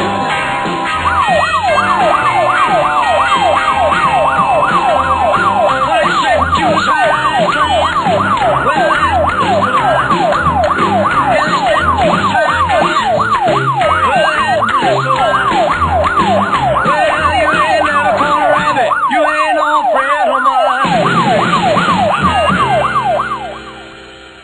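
Siren sounding in fast, repeated rising sweeps over rock-and-roll music with a steady beat. The beat drops out briefly near the end, then the siren stops and everything fades out.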